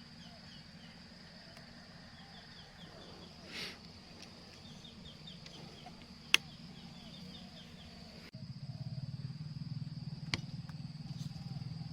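A single sharp crack about six seconds in, the shot of a PCP air rifle, over an outdoor background of insects chirping. After an abrupt cut, a louder low rumble of wind takes over, with a fainter click near the end.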